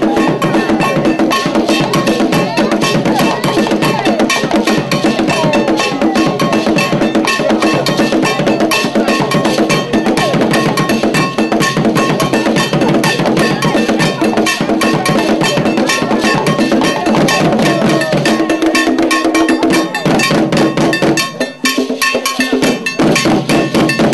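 Ghanaian Adowa drum ensemble playing a fast, dense rhythm: drums struck over a steady ringing iron bell pattern. The drums briefly thin out about three seconds before the end.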